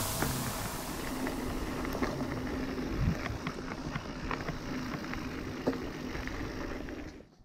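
Mountain bike rolling down a dry, rocky dirt singletrack: a steady noise of tyres on dirt and gravel, with frequent small clicks and rattles from the bike over stones. It cuts off abruptly near the end.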